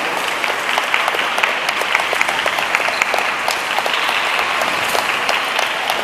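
Audience applauding, a dense patter of many hands clapping with sharper single claps standing out; it swells right at the start and dies away near the end.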